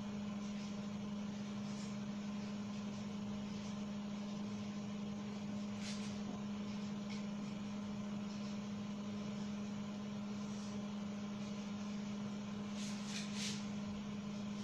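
A steady low hum, with a few faint squeaks of a marker writing on a whiteboard, about six seconds in and twice near the end.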